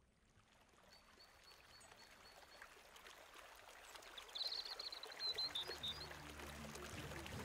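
Faint running water of a stream fading in, with a bird chirping a quick run of high notes about halfway through. Soft low music notes start to come in near the end.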